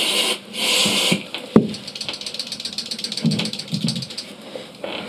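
A short hiss of silicone spray from an aerosol can, then a sharp plastic click and about three seconds of very fast, fine ratchet-like clicking from small plastic toy parts.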